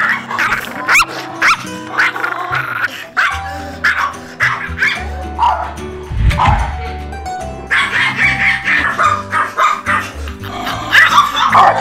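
Small dogs barking repeatedly in short, sharp yaps, among them a Maltese, over light background music.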